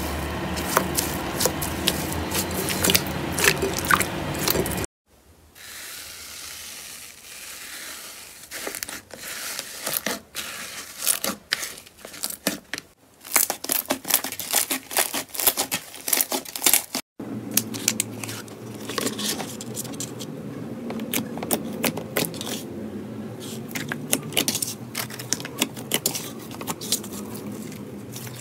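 Hands squishing and kneading slime: a dense crackle of fluffy cloud slime giving under the fingers, then sticky clicks and pops as glossy slime is pressed and folded. Several separate segments change abruptly, about five seconds in and again later.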